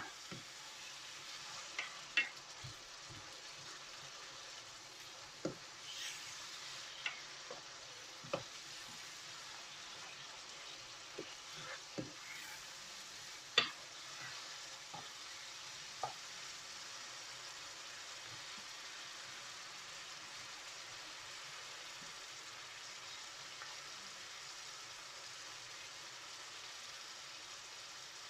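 Spices cooking down in a pan with a little added water, sizzling quietly and steadily, with the scattered clicks and knocks of a utensil stirring against the pan during the first half. The water is there to keep the spices from burning.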